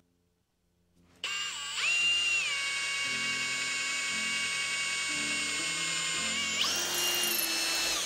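An electric drill starts about a second in and runs with a steady whine. It dips and settles lower as the twist bit bites, then rises again near the end. The bit is drilling through a JB Weld epoxy-filled metal plate held in a vise, the pilot hole for a pipe-thread tap.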